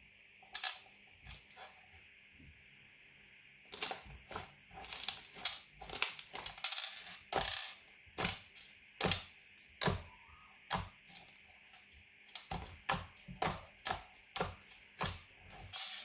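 Glitter slime being worked by hand, giving off sharp irregular clicks and pops. There are a few at first, then a quick, uneven run from about four seconds in.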